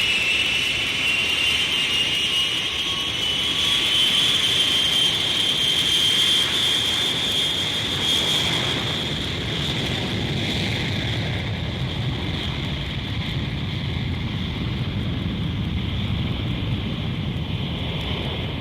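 Airplane engine noise: a high whine over a rushing roar, rising slightly in pitch over the first few seconds and then holding. Near the middle the hiss thins out and a low rumble takes over.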